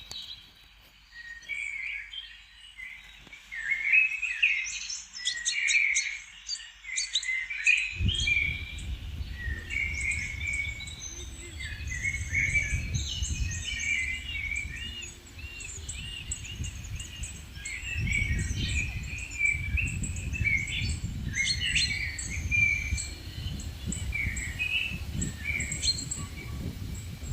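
Several small songbirds chirping and singing, many short overlapping calls. From about eight seconds in, a low, uneven rumble of wind on the microphone comes in under the birdsong.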